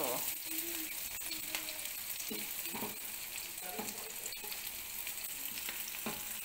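Sliced red onions sizzling in olive oil in a frying pan over low heat: a steady sizzle with scattered crackles. A slotted spatula scrapes and turns the onions in the pan.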